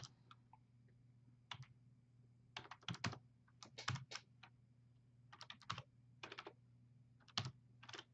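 Faint computer keyboard typing: single keystrokes and short runs of clicks with uneven pauses between them, as an email address is typed in.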